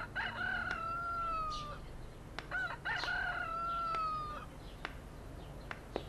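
A rooster crowing twice, each crow one long call that sags slightly in pitch before it stops, with a few short sharp clicks between and after.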